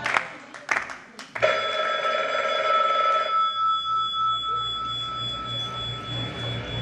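A telephone ringing: one ring of about two seconds, starting a little over a second in, in the long-ring, long-pause cadence of a phone, over a low pulsing beat.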